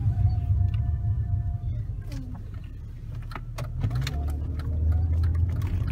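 Car engine and road rumble heard from inside the cabin. It eases off for a moment, then the engine pulls away strongly about four seconds in. There is a brief steady hum near the start and several sharp clicks in the second half.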